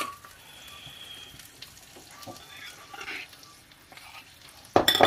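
A metal spoon stirring coarse flour into beaten egg in a ceramic bowl: a faint crackling scrape with small clicks, then a brief louder clatter near the end.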